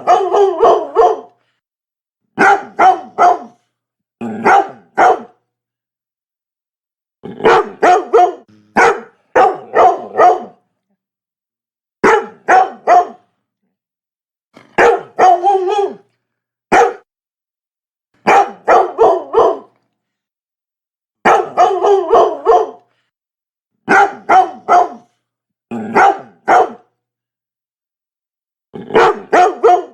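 Labrador dog barking in quick runs of two to four barks, a run every two to three seconds, with dead silence between the runs.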